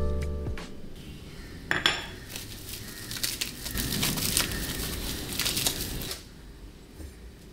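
A thin plastic produce bag crinkling and rustling as a head of broccoli is pulled out of it, with a sharp knock about two seconds in. The crinkling stops about six seconds in. The last notes of a music track die away at the start.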